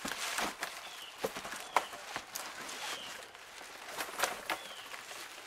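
Clear plastic bag crinkling and cardboard box scraping as a boxed appliance is lifted out. Irregular crackles throughout, with a few sharper knocks.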